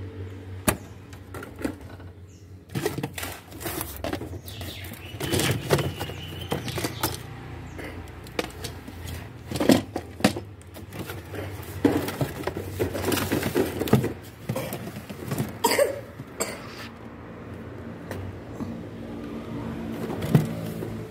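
Cardboard toy boxes and plastic-windowed packaging being handled and shifted on a wooden shelf: irregular knocks, taps and rustles, over a steady low hum.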